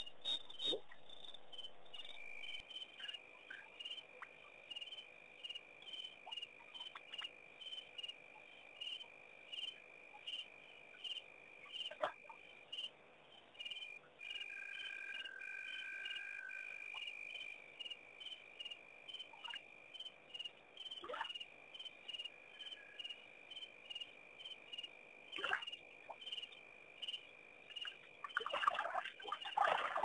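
Night chorus of crickets and other insects: a chirp repeating about one and a half times a second over a steady high trill that sets in about two seconds in. A few short sharp sounds break in, several close together near the end.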